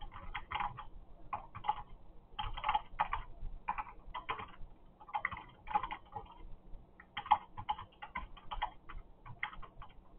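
Irregular runs of rapid, light clicks, several a second with short pauses between runs, like typing, over a faint steady hum.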